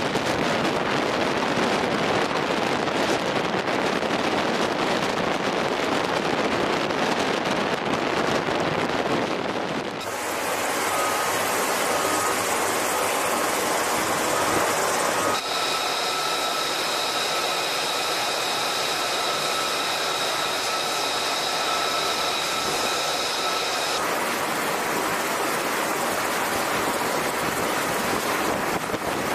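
Steady rush of wind and sea noise recorded on a ship at sea, changing abruptly about ten and fifteen seconds in. Between about fifteen and twenty-four seconds, a steady high machinery whine runs over the noise.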